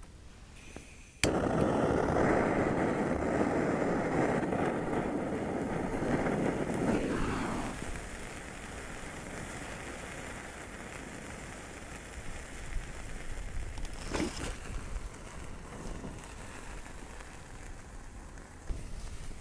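A large bundle of sparklers pushed through a foam block catches all at once, starting suddenly about a second in and burning with a loud fizzing rush for about six seconds. It then settles into a quieter, steady burning noise as the foam block flames.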